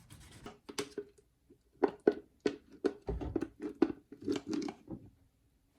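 Kitchen utensils knocking and clattering during food prep, with a run of sharp taps about three a second that stops about five seconds in.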